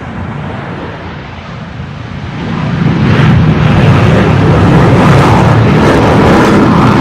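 Jet plane taking off: the engine noise starts loud and swells about two and a half seconds in, then holds at full power.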